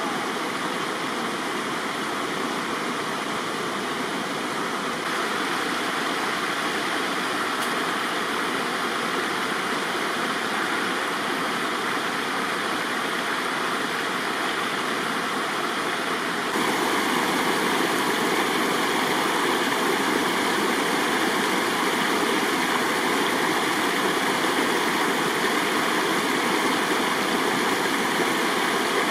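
Spring-fed mountain stream running and cascading over rocks: a steady rush of flowing water. It gets a little louder about five seconds in and again just past halfway.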